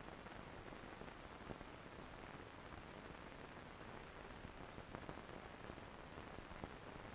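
Near silence: a faint steady hiss with a few soft clicks, the background noise of a silent film transfer, with no sound from the locomotive or the people.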